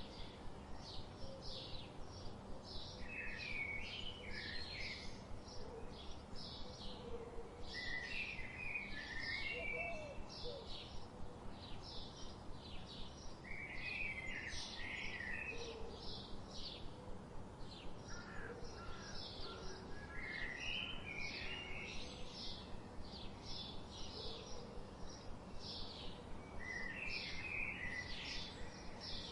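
Birds calling: a steady run of short high chirps, about two a second, with a lower warbling phrase breaking in every five or six seconds over a faint steady hiss.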